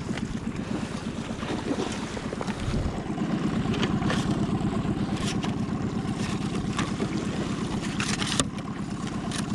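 Small boat's outboard motor running steadily, a fast, even low pulsing, with wind on the microphone and a few light clicks.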